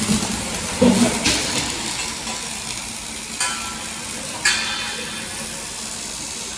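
Robotic arc welding: a steady sizzling crackle over factory noise, with a couple of sharp knocks in the middle.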